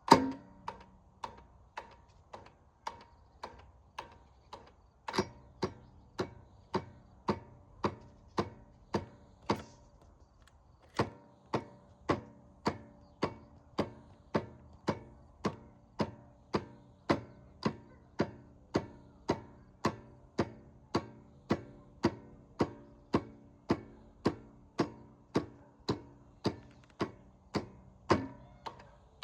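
Starter solenoid of a Stiga Combi electric-start lawnmower clicking over and over, about twice a second, while the engine does not turn over, with a heavier clunk at the start and near the end. The owner asks whether a dead battery, a bad starter motor or a fault in the starter gear is to blame.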